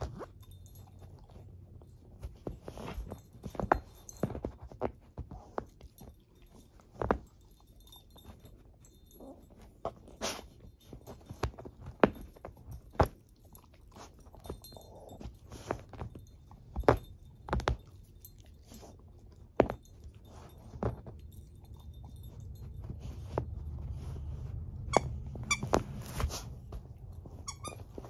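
A shepherd-mix dog chewing and tearing at a woven-fabric stuffed toy, making irregular crunching and ripping sounds. The toy's squeaker squeaks a few times near the end.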